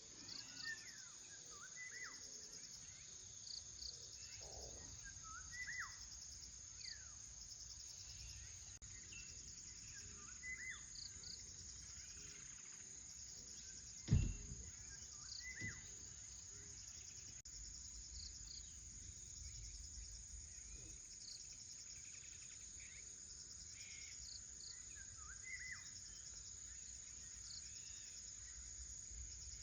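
Outdoor ambience: a steady high insect chorus, like crickets, with short bird chirps every couple of seconds. A single sharp thump about halfway through is the loudest sound.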